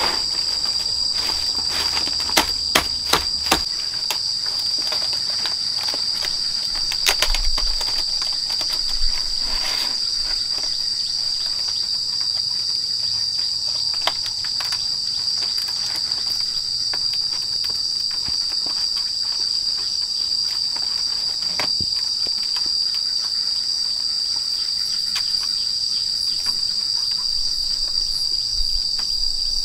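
Insects chirring in a steady, unbroken high-pitched drone. A few sharp clicks and rustles are heard in the first ten seconds or so.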